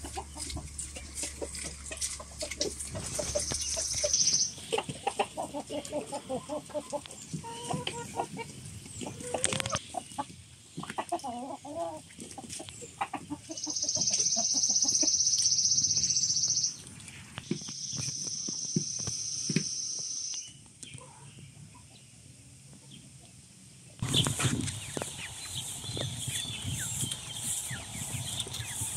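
Backyard laying hens clucking and calling, with a loud steady high-pitched buzz that comes in twice for about three seconds each in the middle. After a cut, a flock of white broiler meat chickens peeping and clucking near the end.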